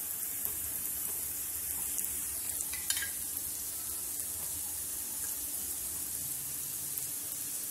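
Oil sizzling steadily around the edges of a thin lentil-batter chilla frying on a hot tawa.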